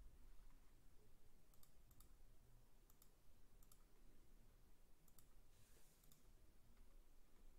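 Near silence: faint room tone with scattered soft clicks, roughly one a second, and a brief soft hiss about three-quarters of the way through.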